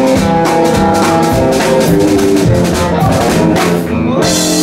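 Live band playing: drum kit strikes over electric guitars and held chords. The band's sound cuts off abruptly about four seconds in.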